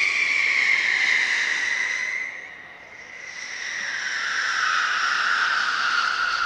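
Fireworks whistles: projectiles shooting up in a fan with two long, shrill whistles. Each whistle slowly falls in pitch, and the second starts about three seconds in after a brief dip.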